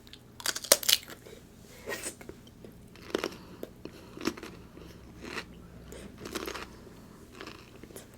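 Close-miked eating sounds: biting and chewing, with short crisp crunches and wet mouth sounds coming about once a second.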